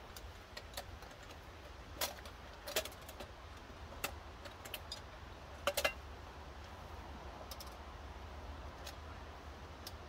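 Light metallic clinks and rattles of a storm lantern being handled, a handful of sharp clicks spread over several seconds, the loudest a quick group of three about six seconds in.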